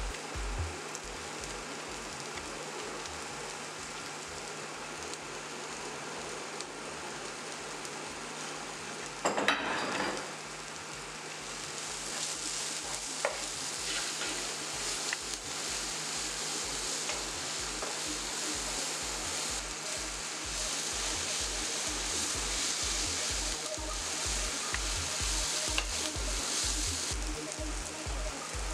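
Shredded cabbage and vegetables sizzling in a non-stick frying pan while being stirred and tossed with a wooden spatula. There is one brief, louder clatter about a third of the way in, and the sizzling grows louder shortly after.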